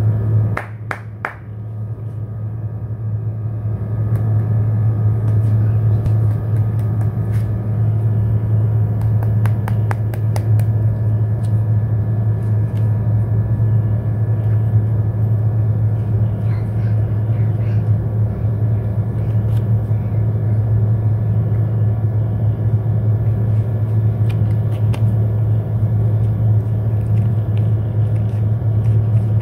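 Steady low mechanical hum, loud and unchanging. Now and then there are faint crinkles and clicks from the paper-foil wrapper of a Cornetto ice cream cone being handled and peeled.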